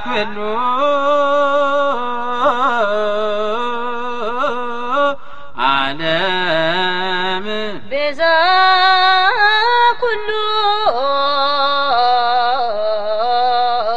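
Ethiopian Orthodox Sunday school choir singing a mezmur hymn, with long, ornamented held notes. There are short breaks between phrases about five and eight seconds in.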